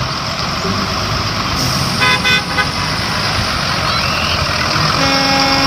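Bus engine running, with a multi-tone 'telolet' horn playing a quick run of short notes about two seconds in and a single held horn tone near the end.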